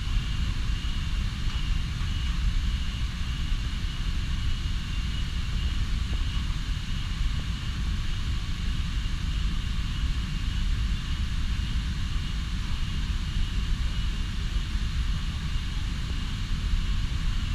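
Steady low rumble of the distant Iguazú waterfalls, under a constant high-pitched drone of rainforest insects.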